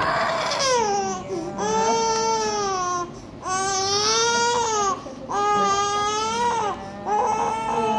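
Baby crying hard in long, high-pitched wails, about five in a row, each a second or so long and broken by a quick breath.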